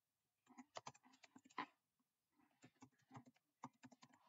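Faint typing on a computer keyboard: two short runs of key clicks as a word is typed.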